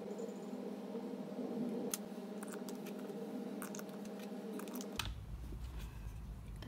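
Light plastic clicks and taps as a plastic popsicle mould and its stick lids are handled and fitted, over a steady low hum that stops about five seconds in.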